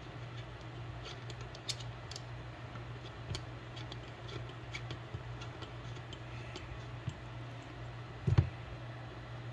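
Light scattered clicks and ticks of a fitting being turned by hand into the top of a Radium Engineering dual oil catch can, with one louder knock about eight seconds in. A steady low hum runs underneath.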